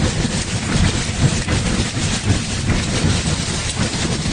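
Strong tornado wind rushing and buffeting the microphone in a continuous low rumble.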